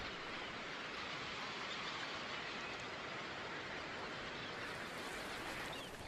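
Faint, steady outdoor hiss of shoreline ambience, with no distinct bird calls or other separate sounds.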